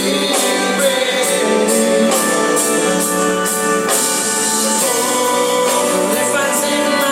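Live rock band playing an instrumental passage: guitar over a steady drum beat with regular cymbal strokes.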